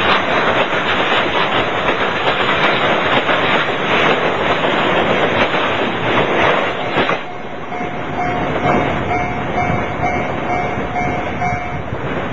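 Freight train container wagons rolling past close by, wheels clicking over the rail joints. The noise drops off sharply about seven seconds in as the last wagon goes by. After that there is wind buffeting the microphone and a steady ringing tone for about four seconds.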